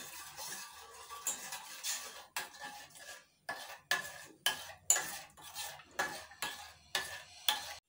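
Metal spoon stirring jelly mixture in a stainless steel saucepan, scraping and clinking against the pan. The strokes start soft and become regular, sharp clinks about twice a second from about two seconds in. The jelly powder is being stirred into the hot water so it does not clump.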